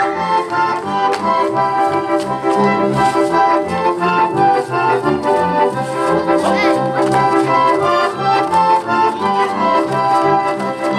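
Folk dance music from the Zemplín region of eastern Slovakia, played with a steady, lively beat.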